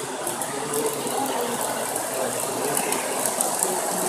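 Lionel Metro-North M7 O gauge model train running on three-rail track: a steady mechanical whir of motor and wheels with rapid light clicks, growing a little louder as it passes close by near the end.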